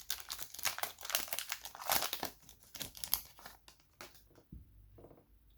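Foil trading-card pack wrapper crinkling as it is handled and torn open: dense rapid crackling for about three and a half seconds, then a few scattered rustles.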